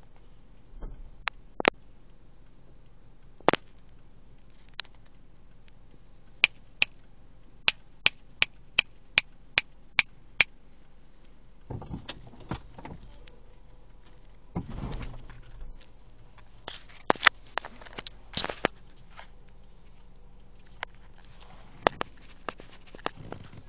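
Sharp taps and knocks on a car's body and windows as a baboon handles the vehicle, including a run of about ten even taps at roughly two or three a second, with short scuffling noises in between.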